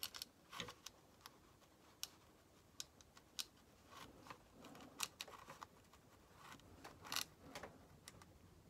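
Near silence: quiet room tone broken by a scatter of faint, short clicks and ticks at irregular intervals.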